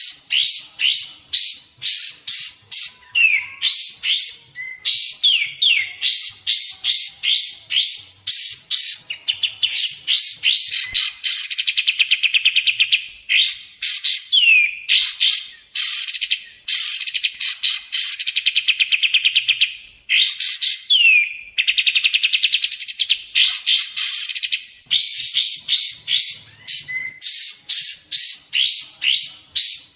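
Kapas tembak bird song used as a trapping lure: rapid, unbroken series of high chirps and fast trills, with sharp downward-sliding whistled notes every few seconds.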